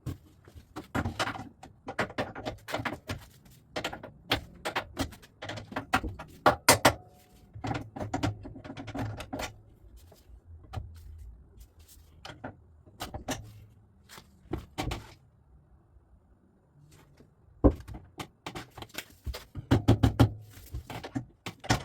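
Hand tools clinking and knocking irregularly against metal parts of a motorcycle being dismantled, in clusters with a short pause about three-quarters through.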